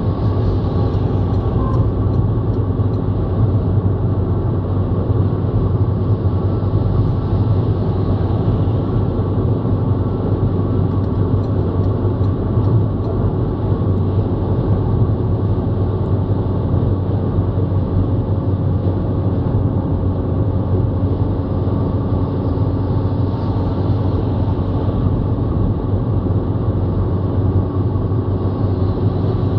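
Steady road noise inside a car cruising at motorway speed: a low, even rumble of tyres and engine with a wash of wind noise over it.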